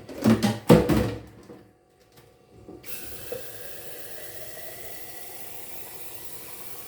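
A few loud clunks in the first second, then water running steadily into a blender jar holding cut beetroot and apple. The filling note rises slightly as the jar fills.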